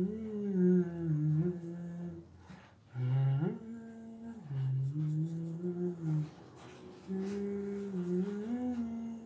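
A man humming a slow tune with closed lips: long held low notes that slide up and down between pitches, in a few phrases with short breaks between them.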